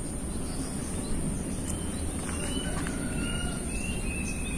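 Outdoor ambience: a low steady rumble under a continuous high insect drone, with several short whistled bird calls from about one and a half seconds in.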